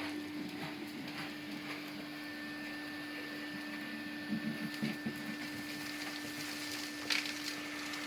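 Numatic SSMF350 industrial vacuum cleaner running steadily with a constant motor whine. A second, higher whine joins about two seconds in, and a few short knocks and rattles come around the middle and near the end.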